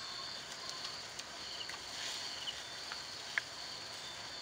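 Insects trilling steadily at a high pitch, with a few faint clicks, the sharpest about three and a half seconds in.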